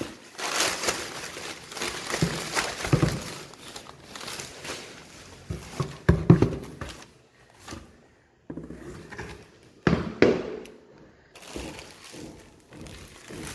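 Crumpled newspaper packing rustling and crinkling as hands pull it out of a cardboard box, with a few thumps from the box and its contents being handled.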